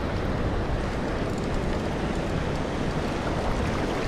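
Steady wind rumbling on the microphone over the wash of surf.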